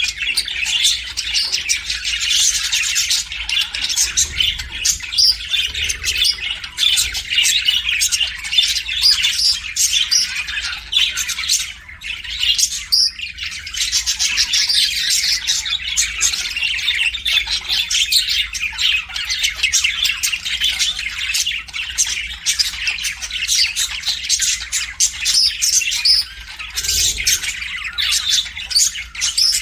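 A group of budgerigars (budgies) chattering and chirping nonstop, many short high notes and squawks overlapping, with a brief lull around the middle.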